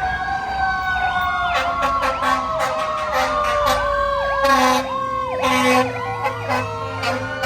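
Emergency vehicle sirens: a slow wail gliding down in pitch, with a second siren's rapid yelp cycling over it from about a second and a half in. Two short horn blasts cut through near the middle.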